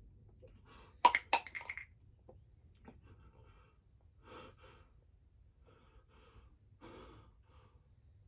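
A small plastic pill bottle and its cap dropped onto a concrete floor, clattering several times about a second in. Then a man's heavy breaths and gasps.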